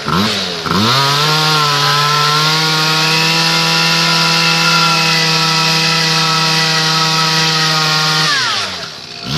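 Small two-stroke motorbike engine blipped a few times, then held at high revs in a steady buzzing wail for about seven seconds, pitch creeping slightly upward, before the throttle is let off and the revs fall away near the end.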